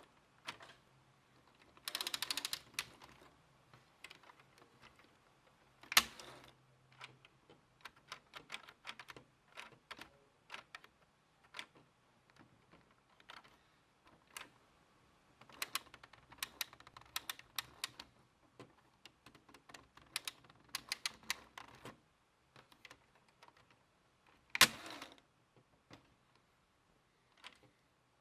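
Lego brick rifle mechanism being worked by hand: plastic parts clicking and rattling in quick runs. Two louder snaps come about 6 s and 25 s in.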